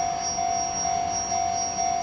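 Japanese railway level-crossing alarm ringing: an electronic bell tone repeating evenly, about twice a second.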